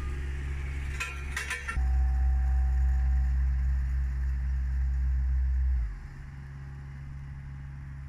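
Hamm double-drum asphalt roller running on fresh asphalt: a steady deep machine hum that becomes much louder for about four seconds from about two seconds in, then drops back. A short run of sharp clicks comes about a second in.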